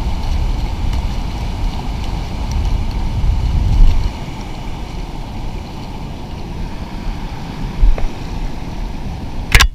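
Rushing river water with wind rumbling on the microphone, heaviest for the first four seconds. A faint click comes about eight seconds in and a sharp knock just before the end.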